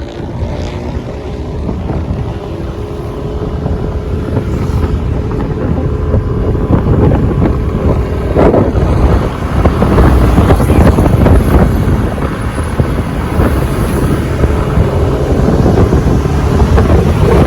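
A moving vehicle running on the road, with gusty wind buffeting the microphone and growing louder.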